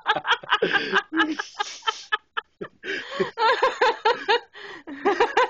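People laughing hard in rapid, breathy, wheezing bursts, with a brief break about two seconds in before the laughter starts again.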